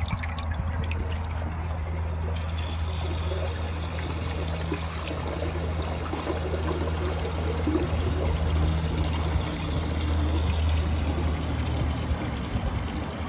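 American Standard Luxor toilet flushing: water rushing and swirling down the bowl and draining through the trap, then running as the bowl refills. A steady low hum runs underneath and fades near the end.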